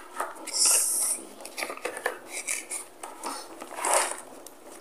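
Cardboard box of a hair straightener being opened and its paper-wrapped insert slid out: rustling and scraping of cardboard and paper. The loudest scrape comes about half a second in, with another near the end.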